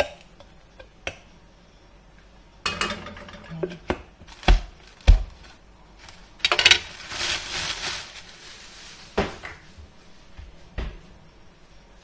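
Kitchen clatter: dishes, pots and utensils knocked and set down on a counter, a handful of sharp knocks with the two loudest about half a second apart near the middle. Between the knocks come a couple of stretches of rustling hiss.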